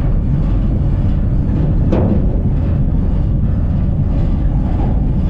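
Loud, steady low rumble of the Mauritania iron ore train running, heard from inside an open steel ore wagon, with a single sharp knock about two seconds in.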